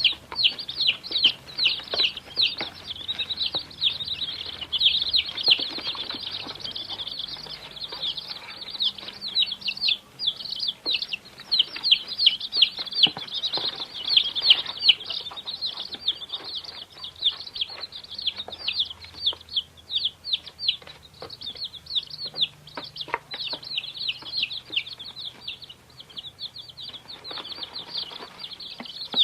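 A group of baby chicks peeping continuously, many high-pitched cheeps overlapping in rapid succession.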